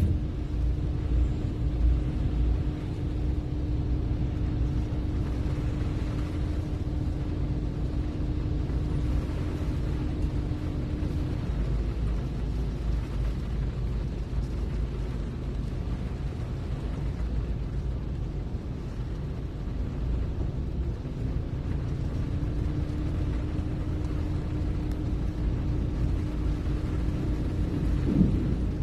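Low steady rumble inside a car's cabin in slow traffic, with a thin steady hum that drops out for about ten seconds in the middle.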